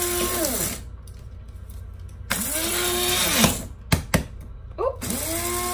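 Electric blade coffee grinder grinding beans in short pulses: the motor whines and spins down as the lid is released, starts again about two seconds in for a second or so, and once more near the end. A few sharp clicks come between the pulses.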